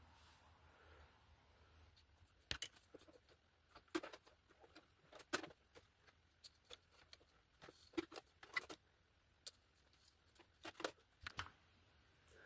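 Faint, irregular clicks and taps of stiff plastic PTFE feed tubes being handled and pushed through a cable holder.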